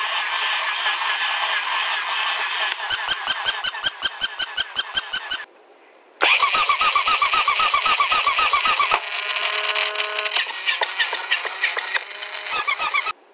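Battery-powered plush toys run from a switch, whirring and squeaking: first a toy dachshund, its sound going into a rhythmic pulse of about four a second. After a short break, a toy bunny starts up with a different repeating chirpy pattern that settles into steadier tones, and it stops just before the end.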